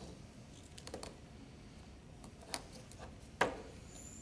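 Scattered sharp plastic clicks and taps from handling a supraglottic airway tube and its cuff syringes in a mannequin's mouth. The loudest click comes about three and a half seconds in.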